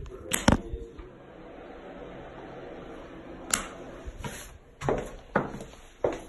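Two sharp clicks close together, then a low steady hum, followed by a few scattered knocks and footsteps on a hard floor.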